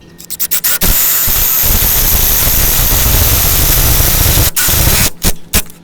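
Power drill boring a latch hole into a wooden gate: a few quick trigger pulses, then a steady run of about four seconds, then two or three short bursts near the end.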